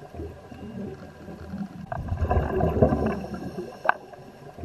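Underwater bubbling and gurgling in uneven surges, typical of a scuba diver's exhaled bubbles heard through the camera underwater, with two short sharp clicks about two seconds apart.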